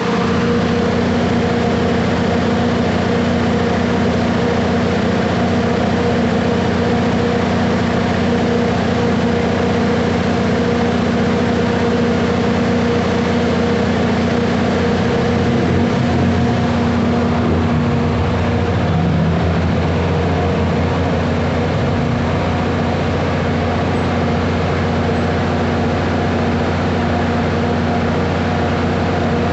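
Diesel generator set running loud and steady under load, a deep engine drone with a steady hum, supplying power during a mains outage. Its note shifts a little about halfway through.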